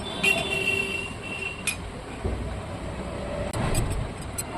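Royal Enfield clutch plates clinking and sliding metal on metal as they are fitted into the clutch basket, with a short ringing tone near the start and a quick run of clicks near the end. A low vehicle rumble runs underneath in the middle.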